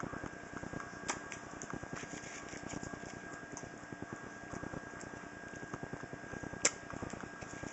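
A small machine running with a steady, fast, even ticking and a thin steady hum. A few sharp clicks stand out over it, the loudest about seven seconds in.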